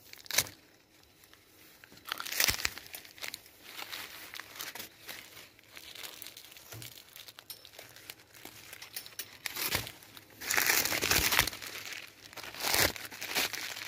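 Paper fruit bags around pears crinkling and rustling as the bagged pears are handled and twisted off the branch, with leaves brushing. Irregular crackling that comes and goes, loudest for a second or so about ten seconds in.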